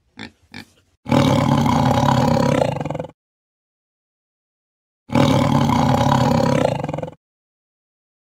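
A tiger's roar, about two seconds long, played twice, the same roar both times, with dead silence between. Two short pig grunts or squeals come just before the first roar.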